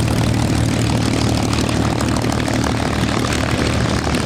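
Propeller aircraft piston engine running steadily and loudly, close by.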